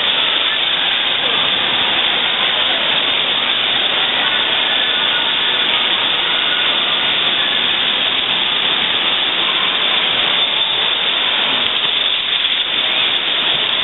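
Floor water jets of a splash-pad fountain spraying and splashing: a loud, steady rush of falling water.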